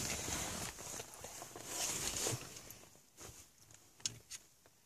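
Hands handling a removed plastic car-console trim frame, with rustling of plastic and sleeves for the first couple of seconds. After that it goes quieter, with a few small clicks and taps.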